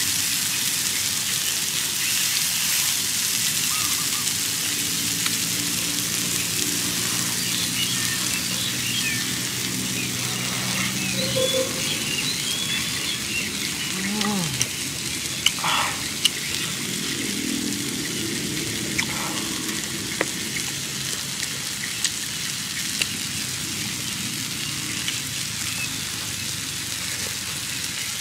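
Steady hissing sizzle of steak and juices cooking on a hot stone slab, with a few bird chirps and a low hum from a voice in the middle.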